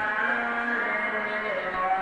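Background music: a slow sung melody with long held notes.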